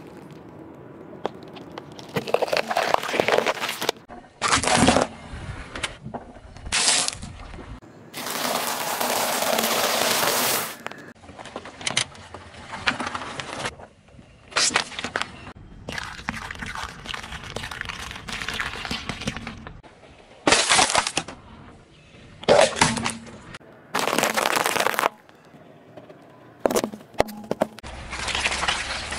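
A car tyre rolling over and crushing a run of objects, among them bell peppers, a plastic yogurt cup and jelly blocks: about a dozen separate bursts of cracking and crunching, each starting and stopping abruptly.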